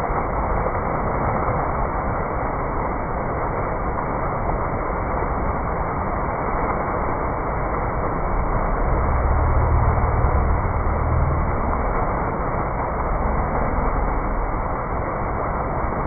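Indoor fountain's ring of vertical water jets splashing down into a tiled basin, a steady rushing of water. A low rumble swells for a few seconds past the middle.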